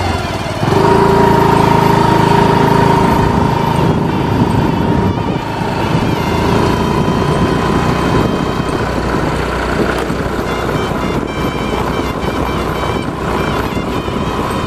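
Motor scooter engine running steadily, stepping up in loudness about a second in.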